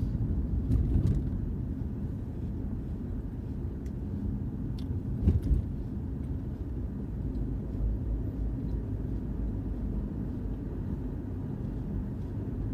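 Steady low rumble of a car, heard from inside the cabin, with a few brief sharp sounds about a second in and again about five seconds in.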